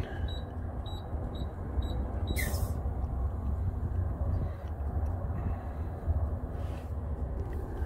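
Steady low mechanical rumble of a truck fuelling station, with a few short high beeps in the first second or so as numbers are keyed into the CNG pump's keypad, and a brief hiss about two and a half seconds in.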